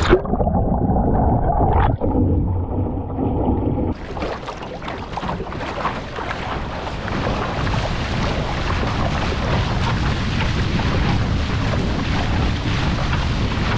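Muffled underwater gurgling and rushing as the sea kayak is submerged. About four seconds in it breaks the surface into a loud, steady rush of breaking surf and spray along the hull as the kayak is paddled and surfs a wave.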